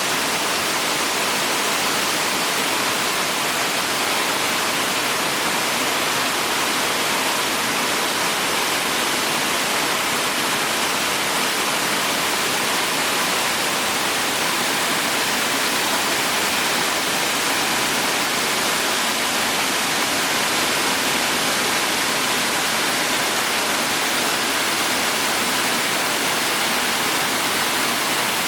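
Waterfall: falling water rushing in a steady, unbroken noise.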